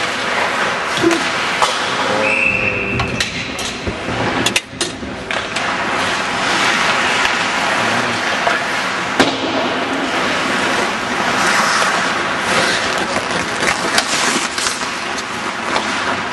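Ice hockey play: continuous scraping of skate blades on the ice, broken by sharp clacks of sticks and puck, the loudest a little after nine seconds. A short high tone sounds about two and a half seconds in.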